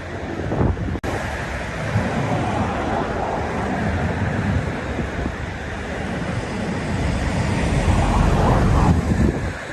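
Sea waves washing and breaking, with wind on the microphone, swelling louder near the end. A brief dropout about a second in.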